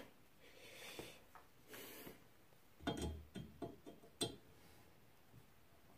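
A hand tap in an adjustable tap wrench being handled and set into a drilled hole in a metal bar: soft rubbing at first, then a few light metal clicks and knocks around the middle.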